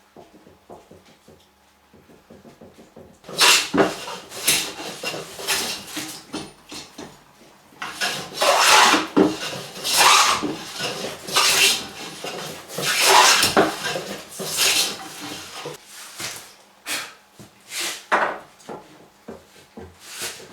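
Hand plane cutting wood in a series of strokes, about one a second, each a short hiss of the blade taking off a shaving; the strokes begin a few seconds in after a quiet start.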